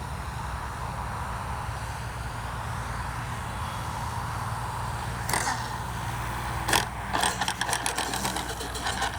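A steady low hum, then from about five seconds in a sharp click, another a moment later, and a quick run of rattling mechanical clicks to the end.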